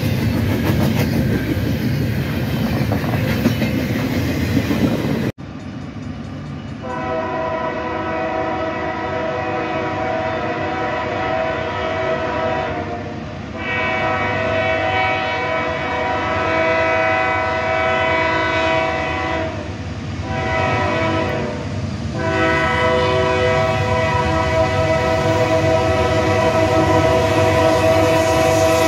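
Double-stack container train rolling past with steady wheel clatter. After a cut, an approaching Union Pacific freight locomotive sounds its multi-chime air horn in the grade-crossing pattern: long, long, short, then a final long blast that is still sounding at the end.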